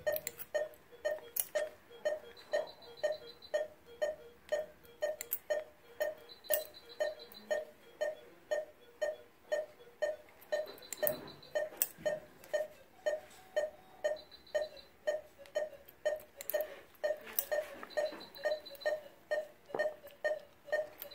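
Patient monitor beeping with the dog's heartbeat under anaesthesia, steady short beeps about two a second. A short run of higher-pitched pips comes every four seconds or so, and surgical instruments click now and then.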